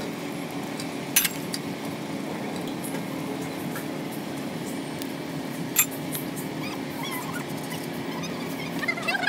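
A steady low hum with two sharp clicks, about a second in and near the six-second mark, then a run of short, high-pitched wavering cries near the end.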